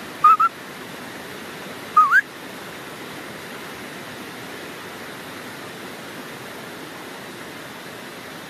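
Kangal dog whining in short high calls: a quick pair, then one rising call about two seconds in, over a steady rush of flowing water.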